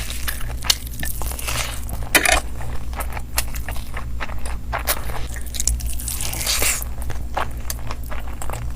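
Close-miked eating of chicken kofta curry and fried rice: irregular chewing and biting, with crunches and mouth clicks, the loudest crunch a little over two seconds in.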